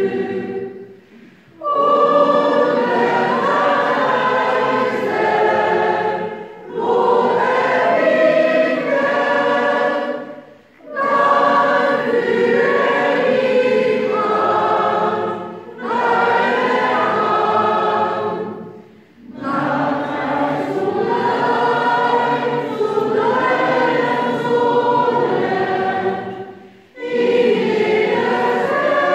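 Large mixed choir of men's and women's voices singing a church song together, in phrases broken by short pauses every few seconds.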